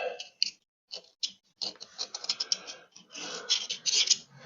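Light, irregular clicks and scraping of small hydraulic-cylinder parts being handled: the old, deteriorated seal pieces being picked out and turned over.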